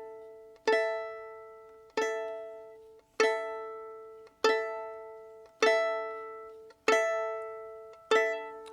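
Background music: a plucked string instrument strikes the same chord seven times, about every 1.2 seconds, each ringing out and fading before the next.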